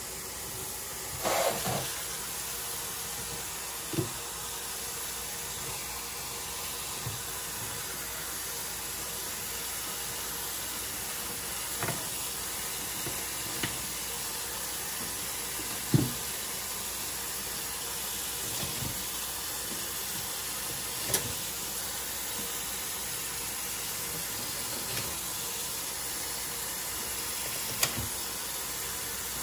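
Kitchen faucet running a steady stream into a stainless steel sink, with a handful of short knocks and clatters as a catfish is filleted on the sink's drainboard.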